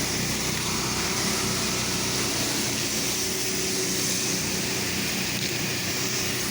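Pressure washer running steadily, its engine humming under the hiss of the water spray.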